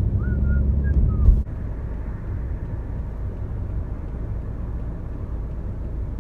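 Car driving, with steady engine and road rumble heard inside the cabin; a few short high chirps in the first second, and the sound changes abruptly about a second and a half in, then settles to a quieter, even rumble.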